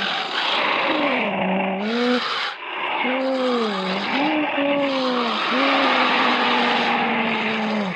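Troll creature vocal sound effect: four long raspy calls, each sliding up and down in pitch, with short breaks between them.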